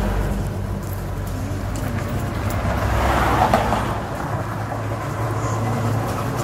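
Road traffic: a steady low engine rumble, with a louder swell of passing-vehicle noise a little past halfway.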